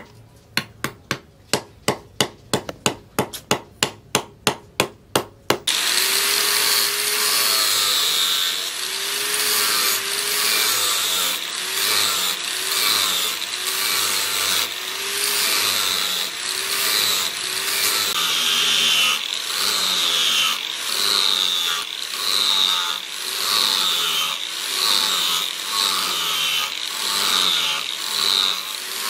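Light hammer taps on metal pins through wooden knife-handle scales, about three a second, peening the pins over. About six seconds in, an angle grinder with a sanding disc starts grinding the wooden handle, its whine dipping under load with each pass about once a second.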